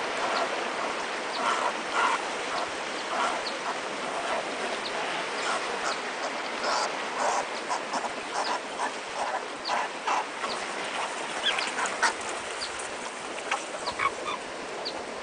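Arctic fox pups squeaking and yelping in short, scattered calls as they tussle over a northern fulmar carcass, over a steady hiss.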